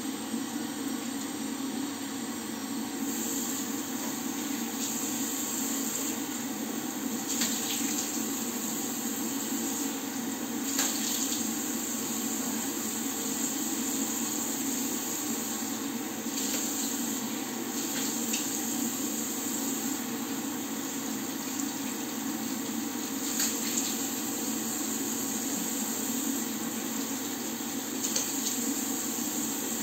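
Tap water running into a bathroom washbasin, with splashes every few seconds as water is scooped up to wash the face, over the steady drone of a bathroom extractor fan.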